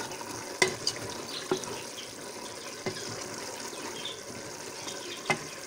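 Black chickpea curry bubbling and sizzling in an open pressure cooker as its cooking liquid boils off, while a spoon stirs it and knocks sharply against the pot a few times.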